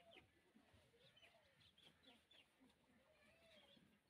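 Near silence with faint bird calls in the background: a few short high chirps and some soft rising-and-falling calls.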